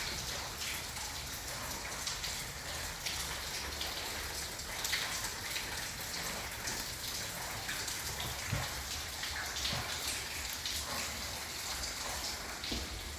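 Rain falling steadily, a constant hiss with many small drop ticks.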